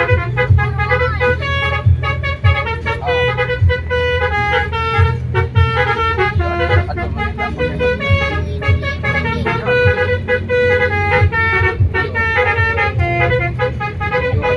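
Bus telolet horn, a set of multi-tone air horns, playing a melody of quick, changing notes without a break, over the steady low noise of the vehicle.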